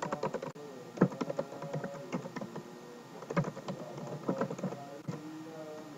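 Typing on a computer keyboard: an irregular run of key clicks, the loudest stroke about a second in.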